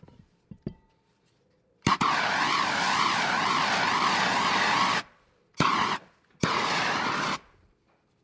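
Pressurised gas hissing from a spray nozzle in three bursts: a long one of about three seconds, then two short ones, with a wavering whistle in the hiss. A few light clicks come just before it.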